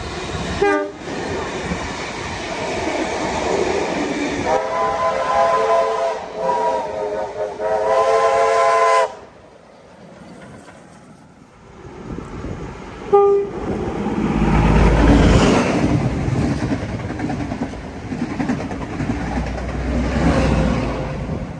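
A diesel locomotive hauling a train of carriages sounds its multi-note horn in a few blasts. After a break, a steam locomotive and then another passenger train pass close by with a heavy low rumble and wheel noise.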